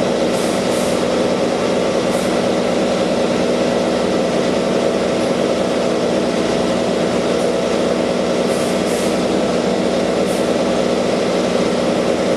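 Industrial laundry machinery running: a steady, loud mechanical drone with several constant hum tones.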